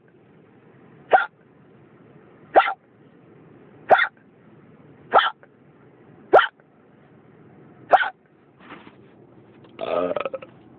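A person hiccupping: six short, sharp hiccups about every second and a half, followed near the end by a longer voiced sound.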